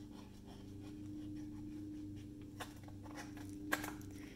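Faint handling noise of glitter cardstock and a plastic glue bottle: light rustles and soft taps, with one sharper tap near the end, over a steady low hum.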